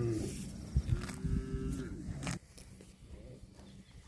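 Calf mooing: the falling end of one high call at the start, then a second short, level call about a second in, over low irregular thumps.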